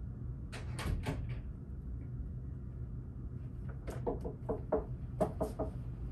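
A door being worked open: a few sharp clicks about a second in, then a cluster of knocks and latch clicks between about four and five and a half seconds in, over a steady low hum of room tone.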